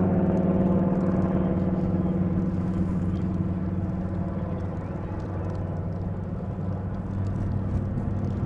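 Saab B17A's Pratt & Whitney Twin Wasp radial engine running steadily as the plane flies overhead, growing a little fainter through the middle and stronger again near the end.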